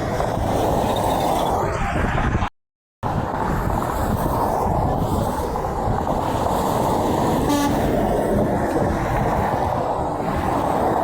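Steady roar of heavy interstate traffic, semi trucks passing close by. The sound drops out completely for about half a second a little over two seconds in.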